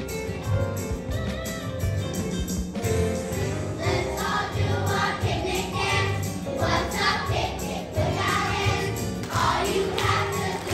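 Children's choir singing along to music with a steady beat.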